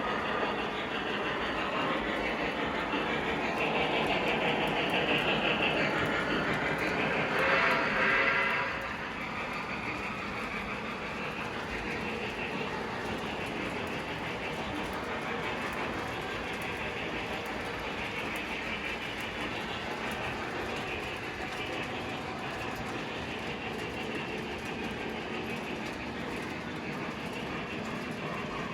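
Model train running along the layout's track with a steady rolling rumble and clatter. It is louder for the first nine seconds, with a brief louder burst just before it settles.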